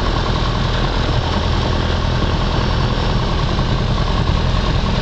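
Piper Cherokee 140's four-cylinder Lycoming O-320 engine and propeller running steadily at low power, heard from inside the cabin.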